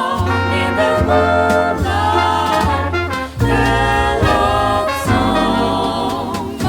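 Four-voice close-harmony jazz vocal group singing a slow swing ballad in sustained chords over a bass line, with a brief breath about a third of the way in.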